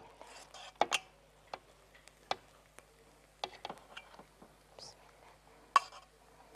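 A serving spoon tapping and scraping against a metal pot as cooked rice is scooped out onto a plate: scattered sharp clicks and knocks, a pair about a second in and the loudest near the end.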